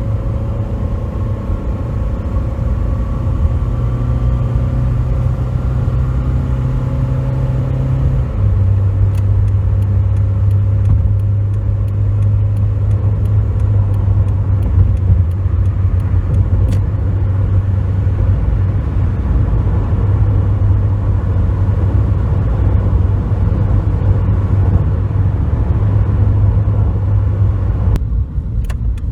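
2007 Toyota Corolla running on the road: a steady low engine and road rumble whose pitch steps down slightly about eight seconds in, with faint ticks later on.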